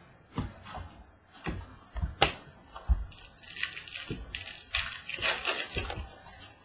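Trading cards being handled and flipped through: several sharp taps and clicks as cards are set down and squared, then cards sliding and rustling against each other.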